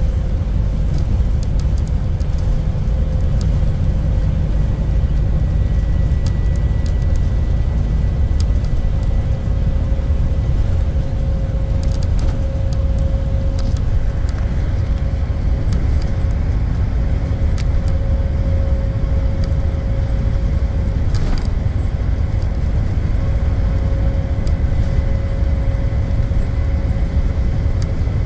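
IC CE school bus cruising at highway speed, heard from inside the cab: a steady low rumble of engine and road noise with a steady whine running through it. A few light clicks and rattles come in partway through.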